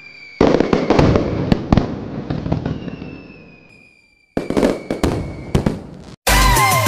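Aerial firework: a whistle, then a loud burst about half a second in with crackling that fades away over several seconds, and a second burst with crackle about four and a half seconds in. Electronic music cuts in abruptly near the end.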